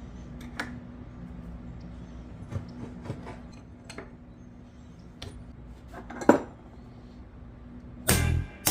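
Metal tools clinking and tapping on a vise while prying and beating at its seized swivel-jaw pin: scattered light knocks with a sharper metal strike about six seconds in. Music comes in near the end.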